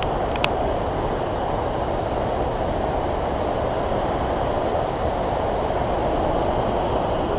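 Stream water rushing over rock ledges and through rapids: a steady, even rush of white water that does not change.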